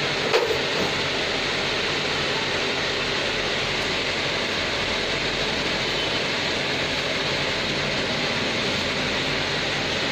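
Steady rushing background noise, with one sharp knock about half a second in.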